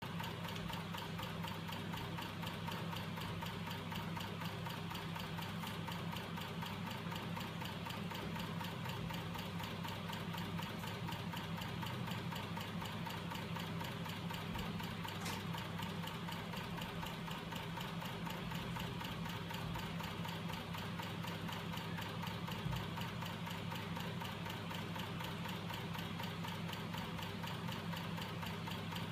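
Homemade magnet-driven crankshaft mechanism powered by small DC electric motors, running steadily: a constant low hum with an even mechanical ticking a few times a second from its moving parts.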